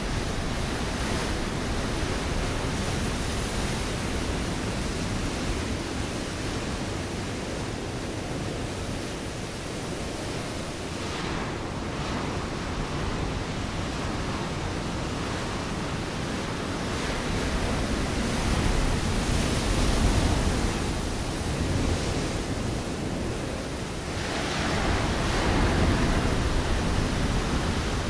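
Ocean waves breaking on a rocky shore: a continuous wash of surf that swells and ebbs as sets come in, with louder breaks near the middle and again near the end.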